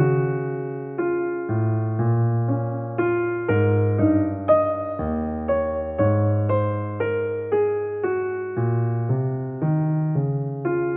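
Background music: a slow, gentle piano melody, one note after another over sustained bass notes that change about once a second.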